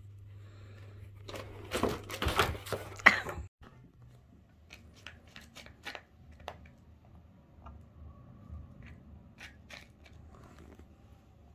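Rabbits rummaging in a cardboard box of packaged treats and toys: about two seconds of loud rustling and crinkling. After a cut, faint scattered crunches as an Angora rabbit nibbles at a jute box stuffed with forage.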